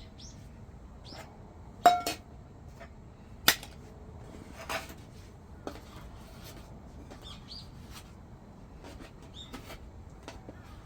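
Tableware clinking and knocking as it is handled and set down: a sharp double clink about two seconds in, a single sharp one at about three and a half seconds, and a softer one shortly after. Faint, brief bird chirps are heard here and there.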